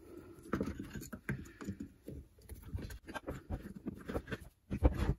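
Hands and a thin metal tool prying a fuel line off a cut-off saw's carburetor: irregular clicks, scrapes and knocks of metal and plastic parts, with a louder knock near the end.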